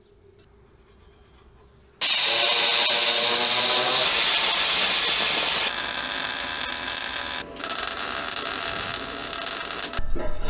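About two seconds in, a power tool starts cutting the steel exhaust tubing, loud, for about four seconds. It then gives way to a MIG welder's steady crackle as the tube is welded, broken once by a brief pause.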